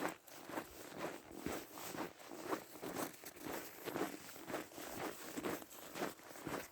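Footsteps of a person walking at a steady pace, about two steps a second.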